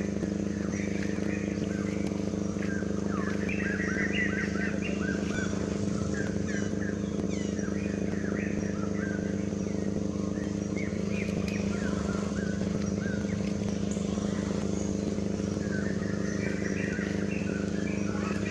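Steady low engine hum, like an idling motor. Clusters of short high chirping calls sound over it, thickest in the first half and again near the end.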